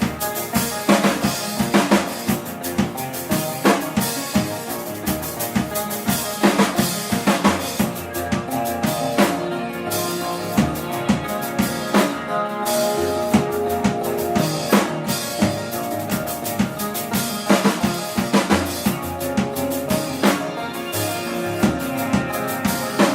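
Live band playing, with the drum kit to the fore: steady kick and snare hits over sustained guitar and bass.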